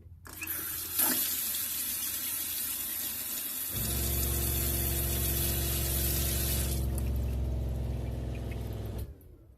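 Water running from a tap. About four seconds in, the 12-volt ShurFlo diaphragm water pump starts with a steady hum. The water stops a few seconds later, and the pump runs on until it cuts off abruptly near the end, its repaired pressure switch working.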